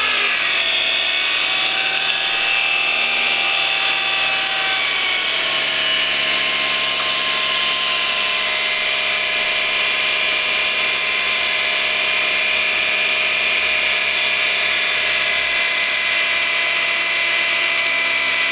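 Light car's automatic transmission giving a steady high-pitched whine while the engine runs, its pitch shifting slightly about five seconds in. The noise comes from inside the transmission: a badly contaminated, sludge-clogged automatic transmission oil filter.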